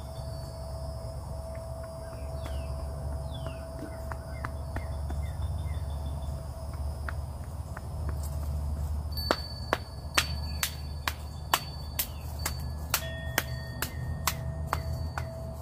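Outdoor ambience: a steady low rumble with steady high insect-like tones and a few short falling chirps. From a little past halfway comes a run of sharp, irregular clicks, roughly two a second, some with a brief ping after them.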